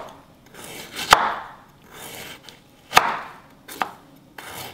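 Large chef's knife slicing through the dense central core of a cauliflower on a wooden cutting board: a crunch as each slice goes through, ending in a sharp knock of the blade on the board, three times.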